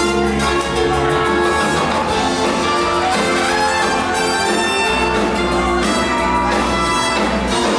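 A live theatre pit band plays an up-tempo dance number, with several instruments holding and changing notes over a steady beat.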